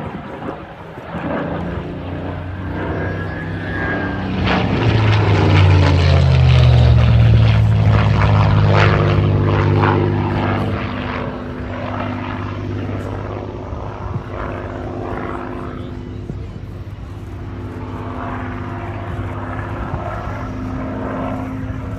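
Spitfire's piston engine running as the plane flies past, the engine note growing loud and dropping in pitch as it passes about five seconds in, then carrying on more quietly.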